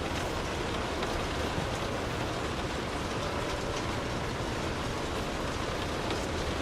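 Light rain falling on a car's roof and windows, heard from inside the cabin: a steady patter with a few scattered louder drops.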